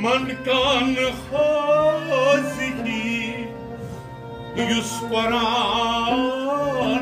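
A man singing a Kashmiri Sufi kalam in two long ornamented phrases with a wavering, vibrato-laden voice, over a sustained harmonium drone and a bowed string instrument.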